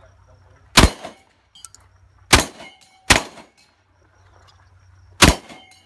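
Four shotgun shots at an uneven pace, the middle two close together, each followed by a short metallic ring.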